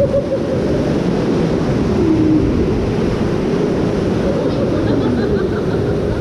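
Steady rush of churning water around a round raft on a river-rapids ride.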